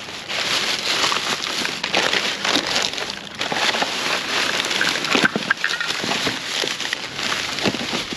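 Plastic garbage bags crinkling and rustling as they are handled and pulled open, with many small crackles and clicks from the packaging and bottles inside.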